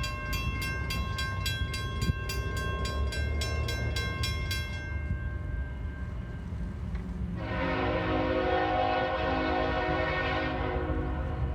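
Norfolk Southern freight locomotive's horn sounding one long blast, about three and a half seconds, starting some seven seconds in, over the low rumble of the approaching train. Before the horn, a rapid ringing at about three strokes a second stops around five seconds in.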